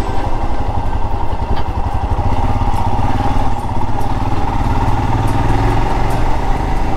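Royal Enfield Himalayan's single-cylinder engine running steadily as the motorcycle is ridden along.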